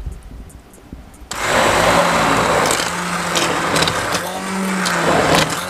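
Bamix stick blender starting about a second in and running steadily, puréeing a pot of thick pumpkin and sweet potato soup.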